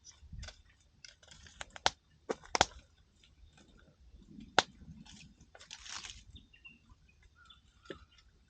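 Wood campfire crackling, with irregular sharp pops and snaps, the loudest about two and a half and four and a half seconds in.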